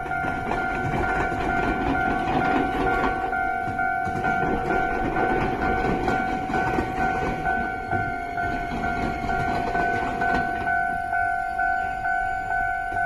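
Japanese level-crossing warning bell ringing with an evenly pulsing two-note electronic tone, while an Iyotetsu train rumbles and clatters over the rails at the diamond crossing. The train noise dies away near the end, leaving the bell.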